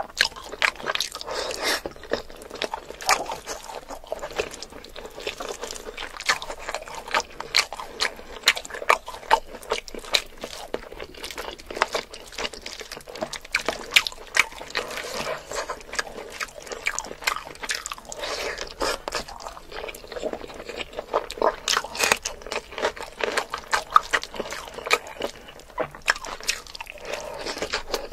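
Close-miked eating of spicy mutton curry with rice: wet chewing and lip smacking, with a steady run of sharp mouth clicks.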